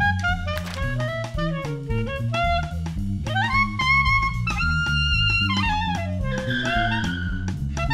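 Jazz band music: a woodwind melody over low bass notes and a drum kit.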